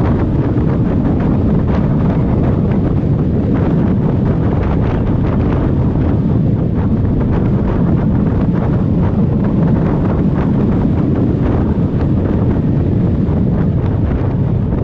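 Steady heavy wind noise buffeting the microphone of a moving motorcycle at road speed, with the low rumble of the ride underneath.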